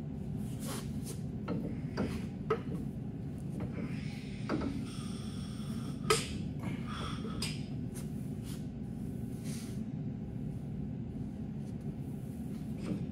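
Hydraulic cylinder of a two-post car lift being worked apart by hand: scattered metallic clicks and knocks as the piston rod is pushed and pulled in its tube, with a short scraping squeal about five seconds in, over a steady low hum.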